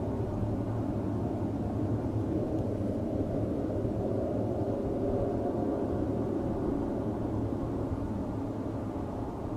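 Steady low roaring drone with no clear pitch, swelling slightly mid-way and easing a little near the end.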